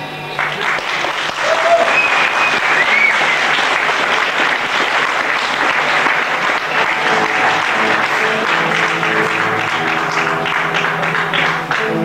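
Audience applauding at the end of a song, with a few gliding whistles about two seconds in. From about seven seconds in, held instrument notes come in softly beneath the applause as the band starts up again.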